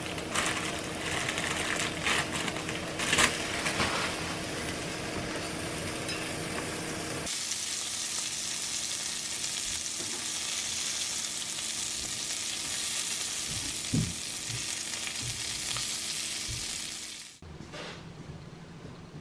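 Plastic bag crinkling and light clicks as lettuce is dropped into a plastic colander, then, about seven seconds in, lamb sausages sizzling steadily in a frying pan, with a single tap near the middle as they are turned with chopsticks. The sizzle cuts off suddenly near the end.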